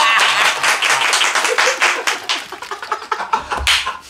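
Rapid hand clapping, several claps a second, over hearty laughter; the clapping thins out about three and a half seconds in.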